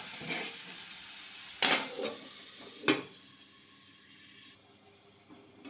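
Pointed gourd slices sizzling in an aluminium kadai, with three metal clanks on the pan, the last as the lid goes on. After that the sizzle carries on as a quieter hiss under the lid.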